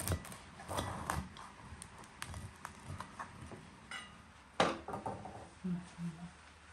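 Table-side serving sounds: a knife crunching through a crusty burger bun on a plate, a drink pouring from a jug into a glass, and scattered clicks and knocks of knife, glass and plates on the wooden table, with one sharp knock about two-thirds of the way in.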